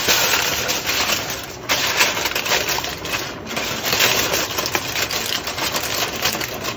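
Aluminium foil crinkling and crackling as it is stretched over a metal pot of rice and crimped down around the rim to seal it, with two short lulls.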